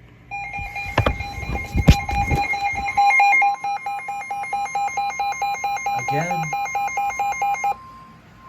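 Emergency alert tones for a severe thunderstorm warning: rapid, loud electronic beeping at two pitches, joined partway through by a steady tone, with a short rising chirp about six seconds in. It cuts off shortly before the end. Several thumps and clicks sound in the first couple of seconds.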